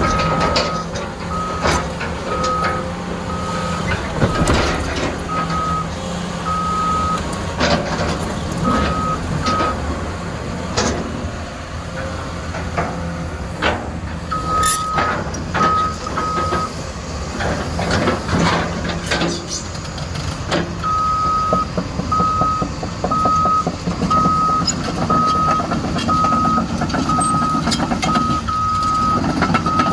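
Caterpillar 320E L excavator's diesel engine running, with its travel alarm beeping steadily at one pitch while the machine tracks, plus scattered metallic clanks. The beeping stops about ten seconds in, returns briefly, then resumes for the last third.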